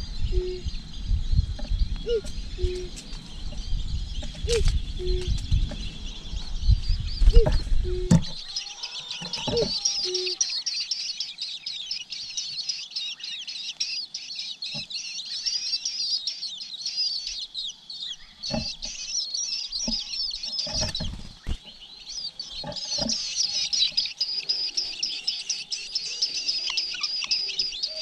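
Nestlings begging in the nest: a dense, high-pitched chatter of overlapping cheeps that sets in about eight seconds in and keeps going. Before that, a low rumble with a short low note repeated about once a second.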